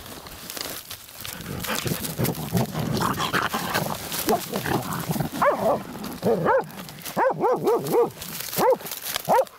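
Laika hunting dogs digging at a burrow, with scratching in soil and dry grass, then breaking into a quick run of short, high yelping barks from about halfway that grow more frequent toward the end.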